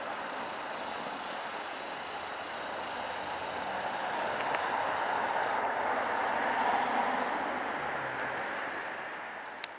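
Street traffic noise: a steady hum of cars that swells as a vehicle passes about six to seven seconds in, then fades out near the end.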